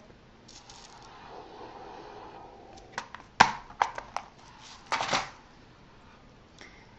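Clear plastic compartment organizer box being shut: a few sharp plastic clicks and knocks about three seconds in as the lid snaps closed, then a short burst of clicking and rattling about five seconds in.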